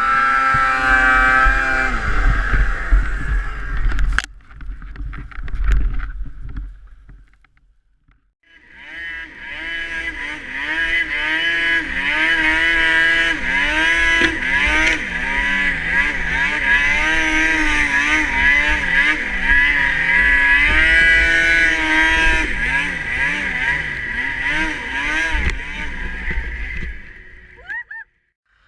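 Snowmobile engine running, its pitch rising and falling with the throttle. It breaks off sharply about four seconds in, goes nearly quiet for a couple of seconds, then runs again with the pitch repeatedly climbing and dropping until shortly before the end.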